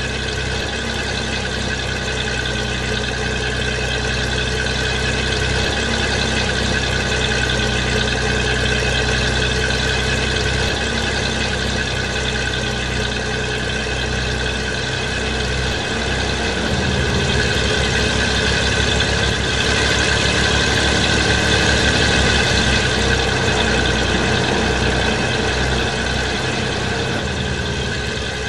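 HO-scale model ALn 556 diesel railcars running on a model railway layout, a steady engine-like drone that grows a little louder past the middle.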